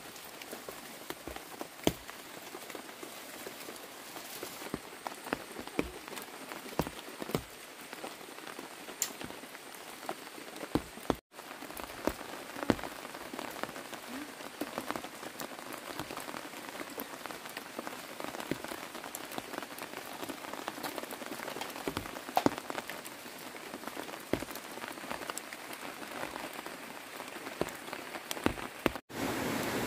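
Steady rain falling, with many scattered sharp ticks of individual drops.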